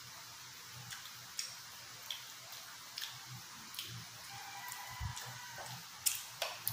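Close-up eating sounds: scattered soft clicks and wet smacks of chewing and of fingers picking at pieces of grilled T-bone steak. The sharpest clicks come near the end.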